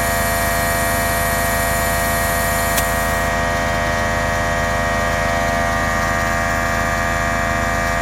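Husky 100 psi electric air compressor running steadily with a high whine, pumping up its tank; one brief click about three seconds in.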